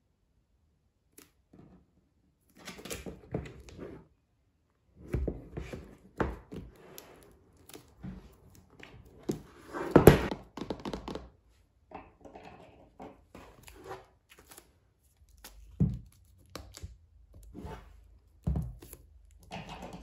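Shrink-wrapped cardboard album boxes handled on a table: the plastic film crinkles, with irregular taps and thunks as the boxes are moved and set down. The loudest thunk comes about halfway through.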